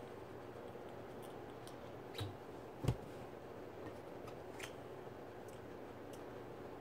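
Faint clicks and small knocks of a lightsaber blade being handled and fitted into the metal hilt's emitter, with one dull knock about three seconds in.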